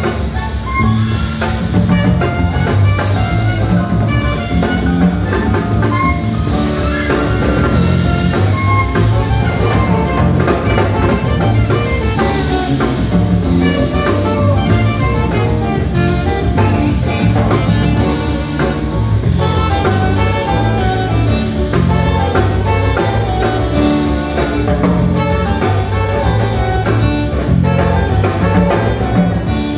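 Live jazz quartet playing: electric bass guitar carrying a moving bass line under drum kit and cymbals, saxophone and piano, continuous with no pauses.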